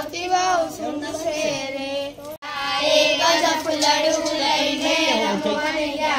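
A group of young girls singing together in unison, with a momentary break a little over two seconds in.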